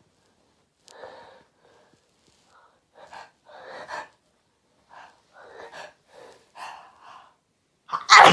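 A person with a cold taking a string of short gasping breaths, building up to a sudden loud sneeze near the end.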